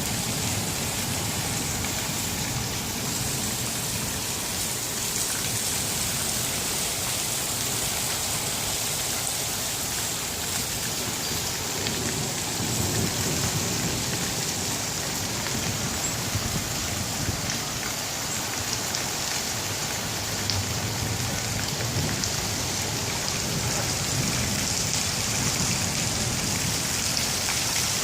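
Steady downpour of thunderstorm rain pattering on hard surfaces, with low thunder rumbles swelling and fading now and then.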